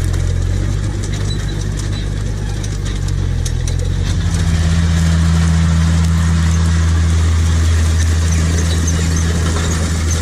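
Tractor engines running steadily under load as they pull grain drills through stubble: first a Case Maxxum 110, then from about four seconds in the six-cylinder diesel of a John Deere 6820, a low, loud drone with scattered clicks and rattles.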